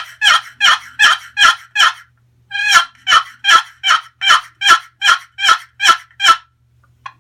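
Bloodwood-over-Black-Limba wooden turkey box call played as a hen's yelping: a run of yelps that stops about two seconds in, then after a short pause a second run of about ten, about two and a half a second.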